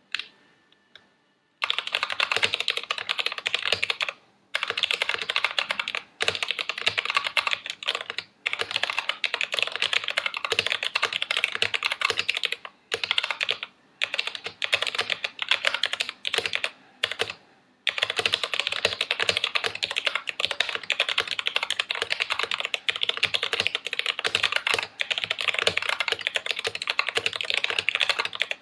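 Fast typing on a mechanical keyboard fitted with YMDK dye-sublimated PBT keycaps in Cherry profile: a dense run of key clacks starting about two seconds in, broken by short pauses every few seconds.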